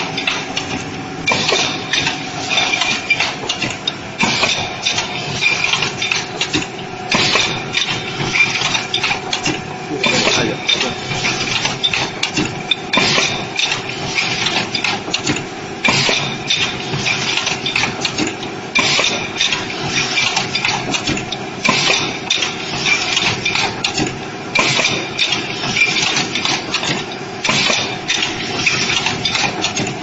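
Automatic coffee capsule production machine running: a steady motor hum under a rapid, irregular clatter of clicks and knocks from its pneumatic arms and capsule-handling stations, with recurring bursts of hiss.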